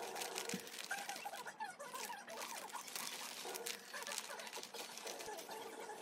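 Clear plastic zipper bag crinkling as a stack of folded cloth handkerchiefs is slid into it and the bag is pressed around them.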